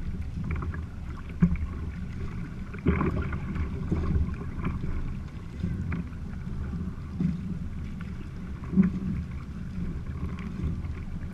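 Water splashing and sloshing around a kayak being paddled, over a steady low rumble of wind on the microphone, with a few short sharp knocks about a second and a half, three and nine seconds in.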